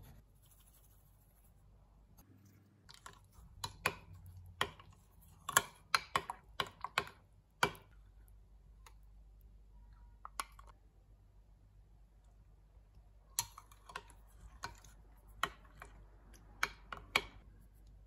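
Metal spoon clinking and scraping against a glass bowl while stirring sugar into a thick cream. There are two runs of quick, irregular clicks, separated by a few quieter seconds.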